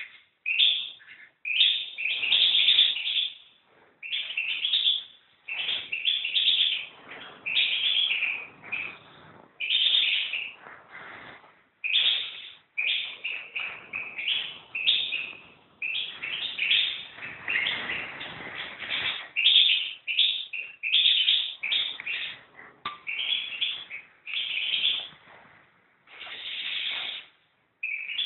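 European goldfinch singing in a long run of short, fast phrases broken by brief pauses.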